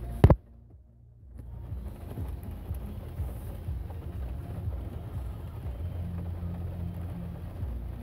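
Nissan Fuga's 3.5-litre V6 idling, a low steady rumble heard inside the cabin. A sharp click comes just after the start, the sound drops almost to silence for about a second, and then the idle comes back.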